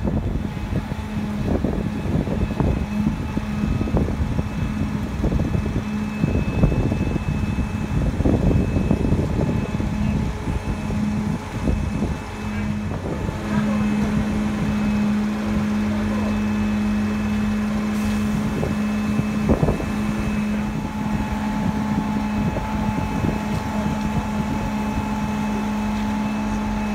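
Mobile crane's diesel engine running steadily with a constant low hum while it holds and swings a suspended railway carriage. For the first half, gusts of wind buffet the microphone; after that the engine note is steadier and stronger.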